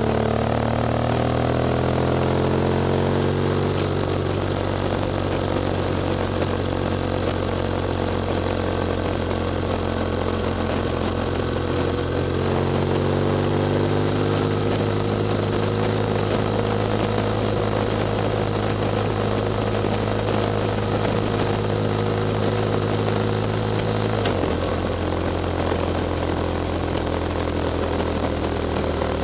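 Motorcycle engine running at road speed, with wind rushing past. The engine note falls over the first few seconds, climbs again around twelve seconds in, and drops in one sudden step about twenty-four seconds in, as at a gear change.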